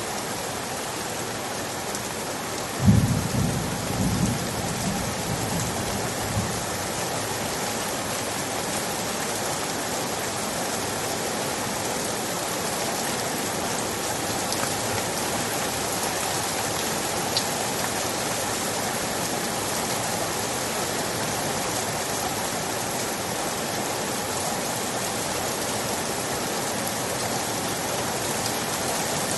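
Steady, even rain. A brief low rumble comes in about three seconds in, the loudest moment, and fades out over the next few seconds.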